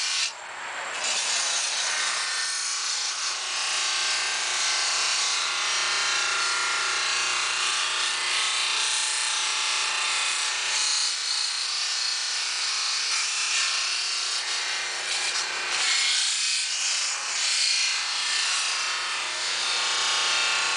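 Bench grinder with a cloth buffing wheel running steadily, with the hiss and rub of a long aluminium trailer window brow pressed against the spinning wheel as it is polished. The rubbing dips briefly about half a second in, then carries on steadily over a faint motor hum.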